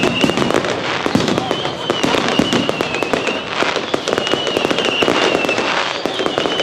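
Fireworks display: a dense, continuous run of bangs and crackling bursts, with a high wavering whistle through much of it.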